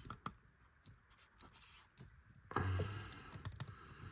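Faint light clicks and taps of a small plastic action figure being handled and posed, with a short rustling stretch and a quick run of clicks about two and a half seconds in.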